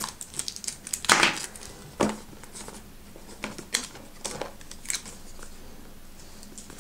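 Clear plastic shrink wrap on a cardboard phone box being snipped and pulled off, with the loudest crinkle about a second in and a sharper one a second later. Then a few light crinkles and taps as the box is turned over in the hands.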